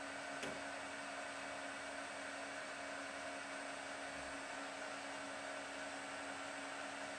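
Metal lathe running steadily with its spindle turning and no cut being taken, a constant motor sound with a few steady tones. A single sharp click about half a second in.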